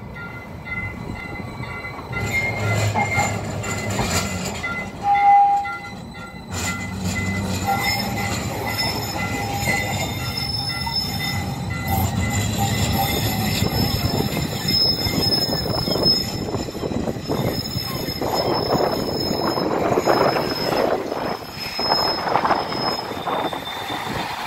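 Articulated low-floor streetcar rolling through a curve in the track, its steel wheels squealing against the rails in several long, steady high tones over a low rumble. A brief louder tone sounds about five seconds in.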